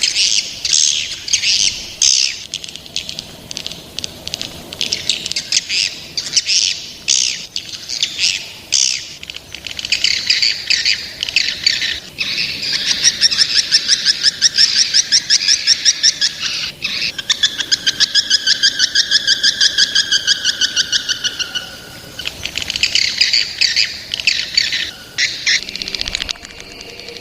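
Young swiftlets calling: quick high chirps, with long rapid buzzing trills through the middle, then chirping again near the end.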